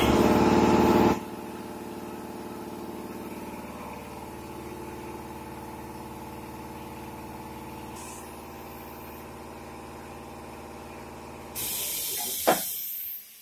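Compressed air hissing in a tyre shop: a loud blast of air at the start and another hiss with a sharp click near the end. Between them a steady mechanical hum with many evenly spaced tones.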